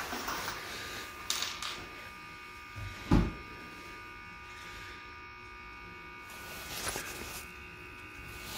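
Handling of tools and wood strips on a wooden floor while a cordless drill is picked up and positioned: a light knock about a second in, a heavier thump about three seconds in, and a soft rustle near the end, over a steady faint electrical hum. The drill itself does not run.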